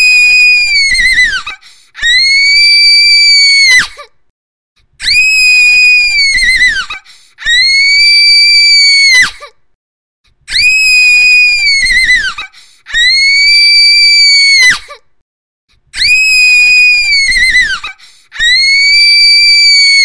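A girl's shrill scream, held on one high, steady pitch for about two seconds and dropping off at the end. It repeats about eight times with short gaps between.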